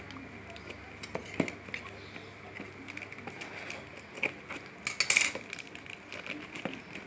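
Hands working at a hard-to-open package: scattered small clicks and rustles of packaging, with a short, loud crinkling burst about five seconds in.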